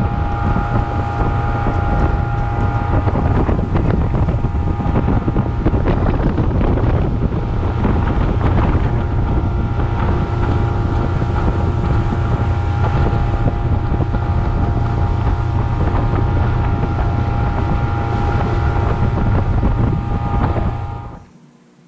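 Motorboat engine running at a steady speed under way, with heavy wind buffeting the microphone. The sound stops abruptly shortly before the end.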